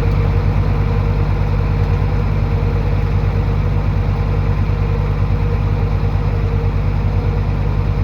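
Heavy earthmoving machine's diesel engine running steadily at low revs, with a rapid low throb and a faint steady whine above it.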